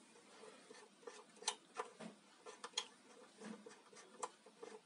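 A few faint, scattered clicks and light rubbing as the plastic rotary switch knob and housing of an electric hotplate are handled.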